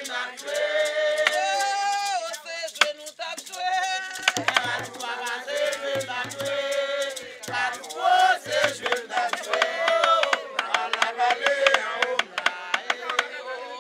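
A group singing a Haitian Vodou song in Creole, several voices together with sharp percussive clicks running through it.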